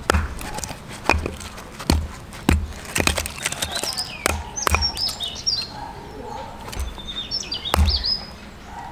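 A piece of firewood knocking a steel pin into the replacement copper head of a Snow Peak peg hammer: a series of sharp, irregular knocks of wood on metal. Birds chirp in the background during the second half.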